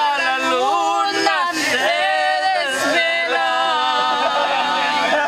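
A woman singing unaccompanied, gliding between long held notes that waver in pitch.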